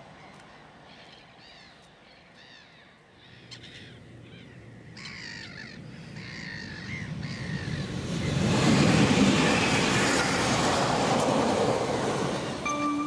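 Birds calling several times, then a Pesa Elf 2 electric multiple-unit train approaches and passes close by, its rush of wheels and air swelling to a loud steady roar. Music comes in near the end.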